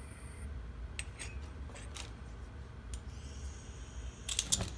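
Light metallic clicks and ticks of soldering tweezers against thin copper sheet leaves, with a quick cluster of sharper clicks near the end, over a low steady hum.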